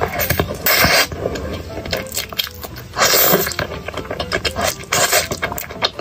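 Close-up slurping of thick Xinjiang fried rice noodles coated in chili sauce, two long slurps about a second in and about three seconds in, with wet chewing and lip smacks between them.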